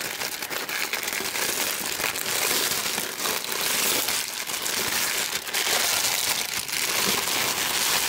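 Clear plastic package wrapping crinkling steadily as hands open it and pull out the contents, a continuous rustle of fine crackles.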